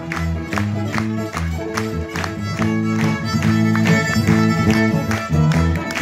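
Live country band playing an instrumental passage: fiddle bowing sustained notes over electric guitars and a steady beat of about two pulses a second.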